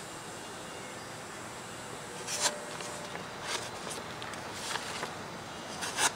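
A freshly sharpened Ka-Bar carbon-steel knife slicing a held-up sheet of paper: four short papery swishes about a second apart, the cut hanging up partway where the edge is thick but still going through well.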